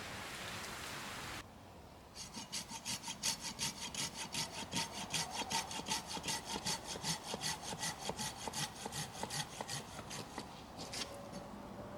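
Hand saw cutting through wood in quick, even back-and-forth strokes, about four or five a second, which stop near the end. Before the sawing, a steady hiss cuts off suddenly about a second and a half in.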